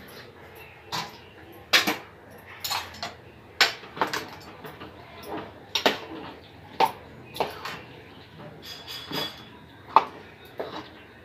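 A metal spoon clinking and scraping against a cooking pot in irregular sharp knocks, about one or two a second, as chicken is stirred into the cooked masala.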